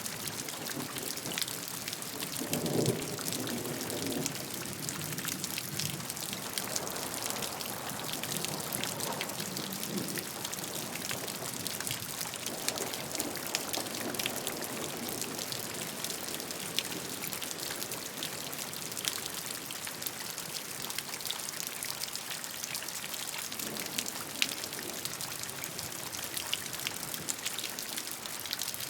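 Steady rain falling, with many individual drops ticking on a surface and a few soft low swells that come and go.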